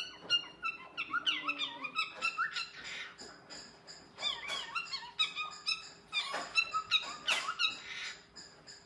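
Cockatiel calling: a rapid run of short chirps and whistles that slide up and down in pitch, repeated again and again as contact calls to its mate.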